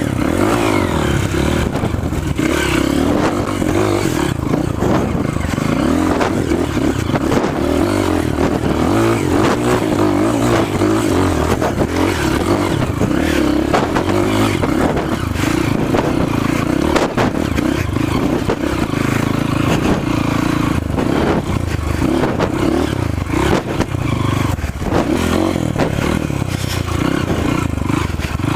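Trail motorcycle engine running steadily as the bike is ridden off-road, with frequent knocks and rattles throughout.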